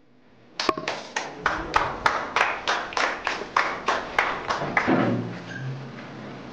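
Hands clapping in a steady rhythm, about three claps a second, that dies away about five seconds in.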